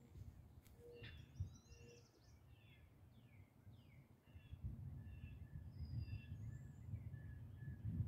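Several songbirds singing and chirping, faint, with quick sweeping notes and, in the second half, one bird repeating a short note about three times a second. A low rumble grows louder from about halfway through.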